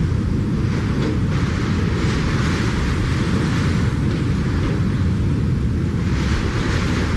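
Hurricane-force wind blowing in gusts over a constant low rumble, the higher rushing hiss swelling and easing every second or two.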